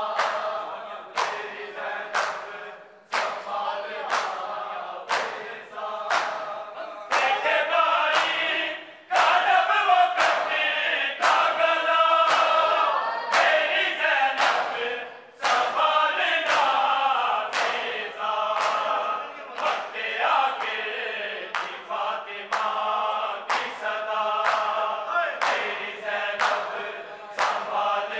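A crowd of men chanting a noha in unison, with the sharp slap of open hands striking bare chests (matam) in time, about once a second. The chanting swells louder for several seconds in the middle.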